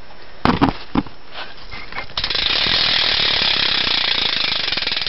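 A BMX rear hub's pawls ratcheting in a fast, even clicking as the rear wheel spins freely, after a few knocks from handling the bike near the start.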